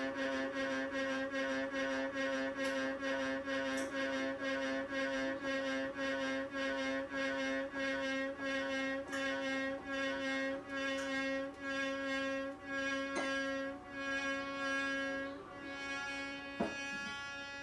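An abnormal whining tone from a machine, a steady pitch with many overtones that pulses about twice a second. The pulses spread further apart as it goes on, and it fades away near the end.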